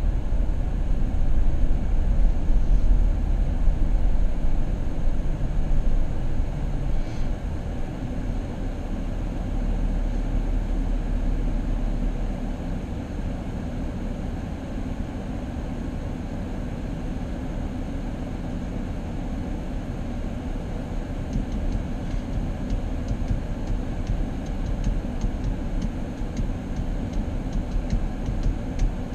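Steady low rumble of a moving vehicle, easing slightly in level after about ten seconds, with a faint rapid ticking joining in during the last third.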